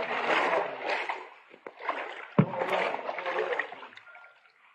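Floodwater sloshing and splashing in surges as a person wades through a flooded house, about one surge a second, with a single sharp knock about two and a half seconds in.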